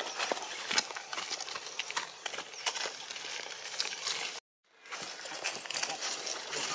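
Crackling and clicking of dry leaf litter. After a brief dropout about four and a half seconds in, a baby long-tailed macaque screams in high, arching squeals, a distress cry for milk.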